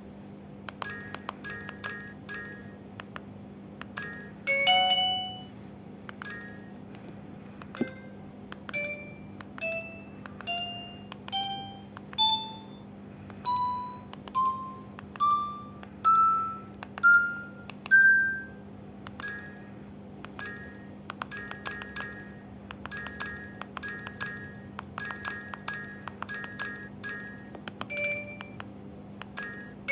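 LG A271 mobile phone beeping through its speaker: many short key beeps as the phone is operated, a short two-note chime about four seconds in and again near the end, and in the middle a row of single beeps, about one a second, that step up in pitch and grow louder.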